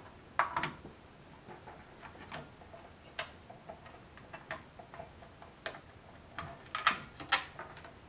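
Irregular light clicks and taps of small plastic and rubber mounting parts being worked loose and pulled off a motherboard around the CPU socket. The loudest clicks come about half a second in and again a little before the end.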